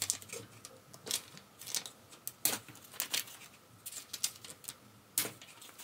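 Paper pages being torn off a tear-off daily desk calendar, with a string of short rips and rustles of paper. The sharpest come about two and a half and five seconds in.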